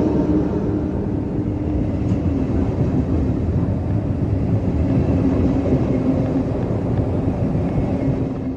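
Double-deck passenger coaches of an electric train rolling past close by: a steady rumble of wheels on the rails, with a faint steady hum.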